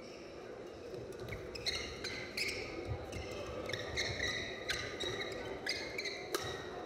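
Badminton rally: rackets striking the shuttlecock in a quick run of sharp pops, with court shoes squeaking on the floor between hits.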